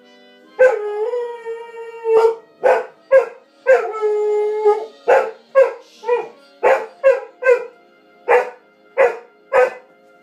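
A dog howling along to music from the television: two long held howls, then a run of short yelping howls about two a second, with faint TV music beneath.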